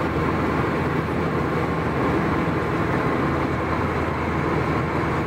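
Steady road-traffic noise of vehicles moving at speed on a highway: an even rush of tyres and wind over a low engine hum.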